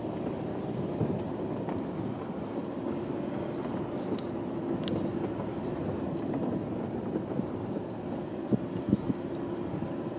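A vehicle driving slowly along a rough village track: a steady engine and tyre noise, with a few low thumps from bumps near the end.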